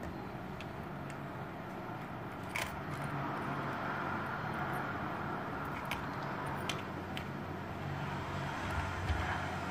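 A few sharp little clicks of small metal tools and plastic parts being handled in a precision screwdriver kit's plastic case, over a steady background hum.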